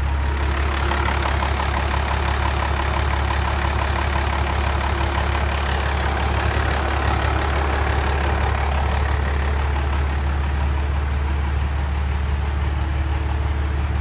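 Dodge Ram's 5.9L Cummins inline-six turbo diesel idling steadily: a deep even drone with a fast, regular diesel ticking over it, the ticking plainest in the first half.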